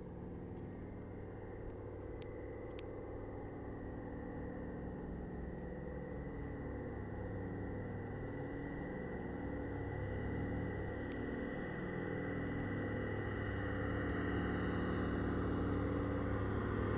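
Douglas C-47 Skytrain (DC-3) with two Pratt & Whitney R-1830 Twin Wasp radial engines, their steady propeller drone growing gradually louder as the aircraft approaches.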